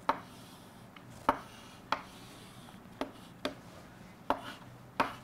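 Chalk on a chalkboard as lines are drawn: about seven sharp taps and short scrapes at irregular intervals.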